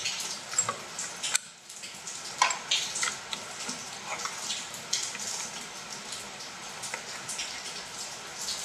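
Small clicks and rattles of a TIG welder's foot-control cable and plug being handled and fitted to the connector on the machine's front, over a steady hiss.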